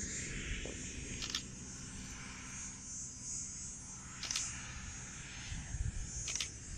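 Outdoor ambience: wind rumbling on the microphone under a steady high hiss, with three short clicks, about a second and a half, four seconds and six seconds in.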